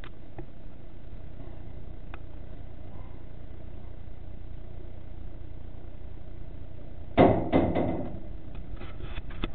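Steady noise of heavy rain outside the shed. About seven seconds in come two sharp knocks in quick succession, followed by a few lighter clicks near the end.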